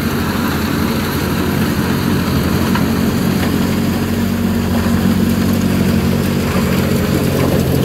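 Loader-mounted rotary snow blower clearing a snowy road: the machine's diesel engine runs steadily under load with a low, even note, over the continuous rushing of snow and grit thrown from the blower.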